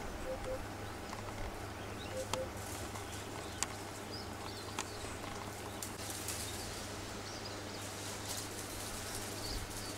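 Outdoor bush ambience: faint, short bird calls and chirps over a steady low hum, with a few sharp clicks in the first half.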